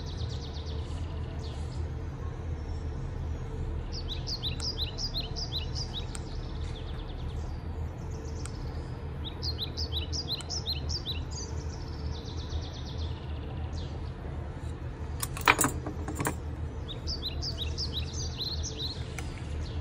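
A bird singing in three short phrases of rapid, high, repeated chirps over a steady low background rumble. A brief clatter sounds about three-quarters of the way through and is the loudest moment.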